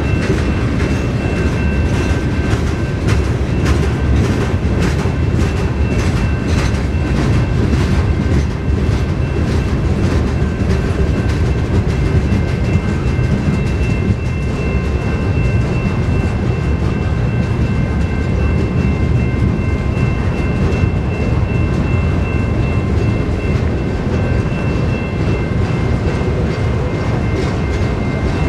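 Freight train cars rolling past on the rails: a steady low rumble with wheel clicks, most of them in the first eight seconds or so, and a few steady high tones ringing above it.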